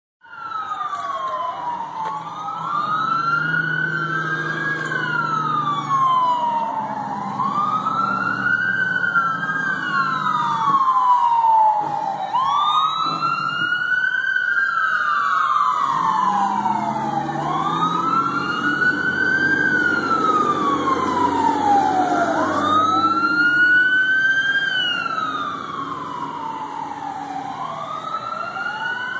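Two emergency vehicle sirens wailing at once, each rising and falling slowly over about five to six seconds, out of step with each other, over a low drone.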